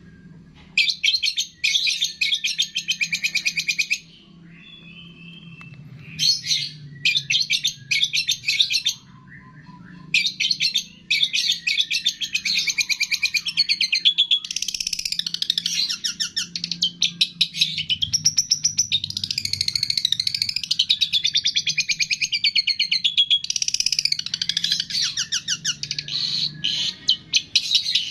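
Songbird masteran (training) track of rapid, fast-pulsed chirping trills and warbling phrases. They come in bursts with short gaps during the first ten seconds, then run on nearly continuously, over a faint low hum.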